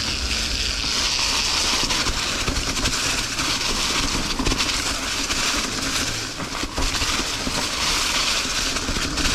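Ibis Ripmo V1 mountain bike riding down a leaf-covered, rocky trail: a steady rush of tyres through dry leaves and over rock, with the bike rattling and scattered knocks from the rough ground.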